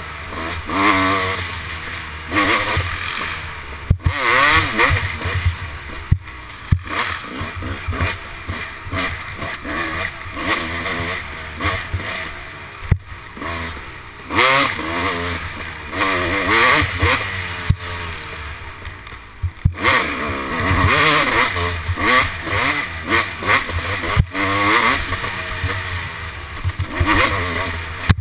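Kawasaki dirt bike engine revving hard, its pitch climbing and dropping again every couple of seconds as the throttle opens and closes. Sharp knocks and clatter from the bike over bumps come through now and then.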